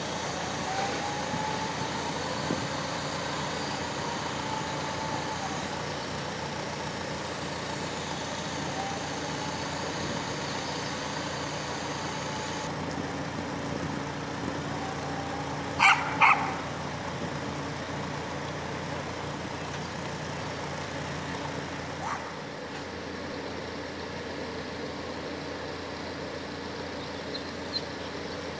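Truck-mounted mobile crane's diesel engine running steadily as it hoists a narrowboat out of the canal, with a dog barking twice in quick succession about halfway through.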